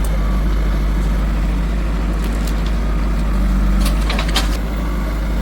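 Heavy diesel engine running steadily at close range, a deep, even drone, with a few short metallic clanks about four seconds in.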